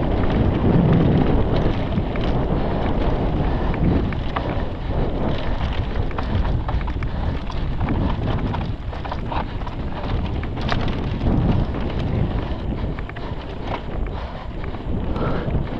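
Wind buffeting the on-bike camera's microphone over the rumble of knobby mountain bike tyres on dry dirt singletrack at speed, with scattered clicks and rattles from the bike and loose stones.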